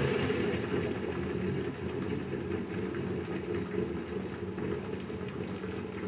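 Bodum Santos electric vacuum coffee maker at the brewing stage: steam from the heated lower carafe bubbling up through the coffee and grounds in the upper bowl, a steady dense low bubbling with fine crackle.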